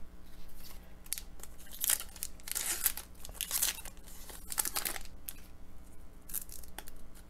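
A foil trading-card pack being torn open by hand, the wrapper ripping and crinkling in a series of short bursts.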